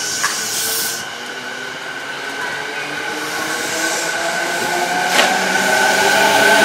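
E217-series electric commuter train pulling out of the platform, its traction motors whining in several tones that climb slowly as it gathers speed and grows louder. A hiss of air stops about a second in, and a single sharp click comes a little past five seconds.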